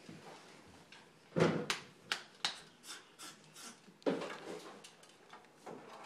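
A scarlet macaw clambering from a chair back onto a wooden table, making a string of knocks and taps on wood. The loudest knocks come about a second and a half in and about four seconds in.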